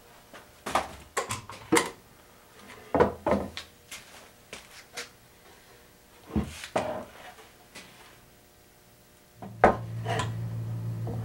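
Cherry boards knocking and clattering as tabletop sections are handled and set down onto steel bar clamps: a scatter of sharp wooden knocks with lighter clinks. About nine seconds in, a low steady hum starts under the knocks.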